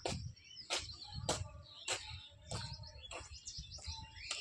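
Small birds chirping and twittering, more of them toward the end, over the even tread of footsteps on pavement, about one step every half second or so.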